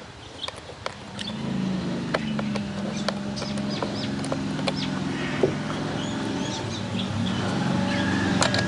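A steady low engine hum sets in about a second in, with scattered light clicks and taps over it.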